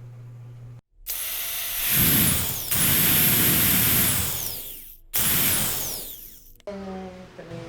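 A small electric motor running in three bursts, like a power drill, each ending in a whine that falls away as it spins down.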